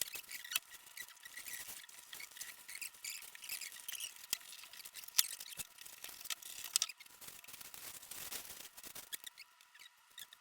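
Packaging being handled, with rustling, scratching and squeaky sounds and many small sharp clicks; the handling stops about nine seconds in.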